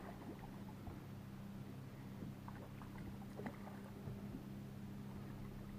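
Steady low hum of a bass boat's electric trolling motor, with a few faint clicks and small splashes as a hooked fish thrashes at the surface near the bow.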